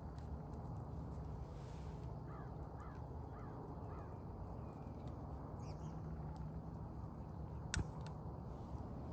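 A crow cawing four times in quick succession, about half a second apart, over a steady low background rumble. A single sharp click near the end.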